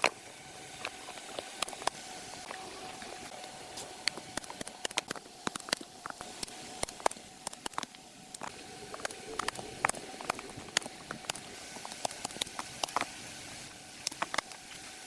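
Irregular light clicks and taps, some in quick clusters, over a faint steady hum.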